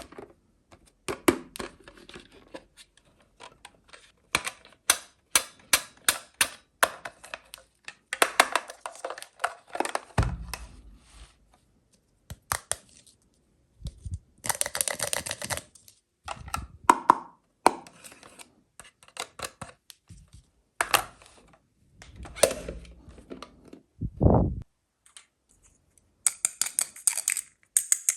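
Small plastic toys and their packaging being handled and unpacked: quick irregular runs of clicks and taps, a few longer stretches of rustling, and one dull thump about 24 seconds in.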